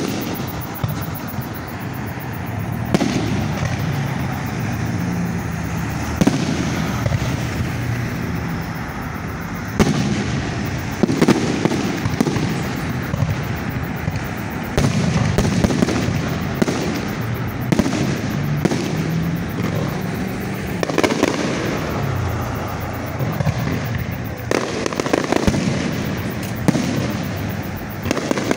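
Aerial fireworks display: shells bursting one after another, a sharp bang every second or two, each trailing off in a rumbling echo.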